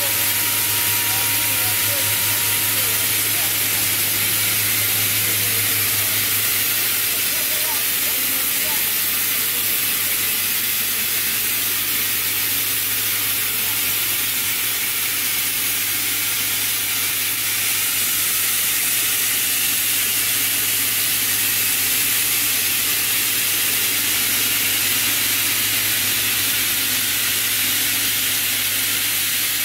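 FDY yarn spinning and drawing machine running: a steady hiss with a low hum underneath, the hum stronger for the first several seconds.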